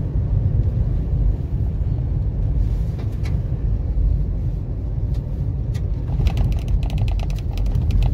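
Vehicle driving on a gravel road, heard from inside the cab: a steady low rumble of tyres and engine. From about six seconds in, a fast rattling of rapid clicks joins it.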